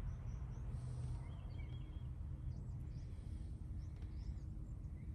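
Steady low outdoor background rumble with faint, scattered bird chirps.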